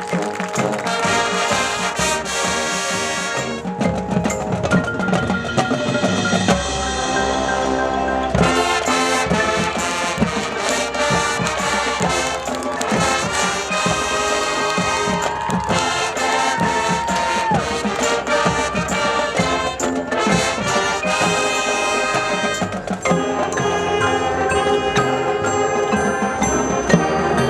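High school marching band playing: brass with drums and mallet percussion, with a few long held notes about halfway through.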